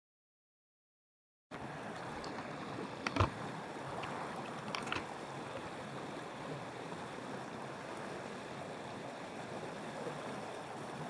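Dead silence for about a second and a half, then the steady rush of flowing stream water, with a few short sharp clicks or knocks a couple of seconds after it begins.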